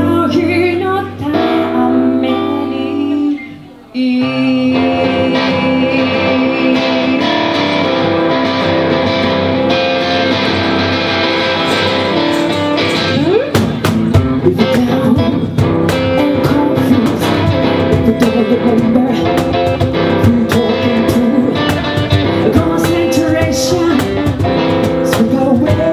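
Live band music: a woman singing over guitar, with a cajon adding sharp beats from about halfway through. The music drops away briefly about four seconds in.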